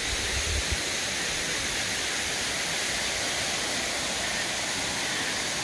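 Steady rushing of water, an even waterfall-like hiss, with a few low bumps near the start.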